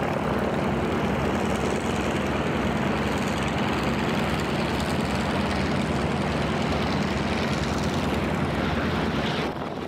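Curtiss P-40 Warhawk's liquid-cooled V-12 engine and propeller running at full takeoff power through the takeoff roll, a steady loud drone.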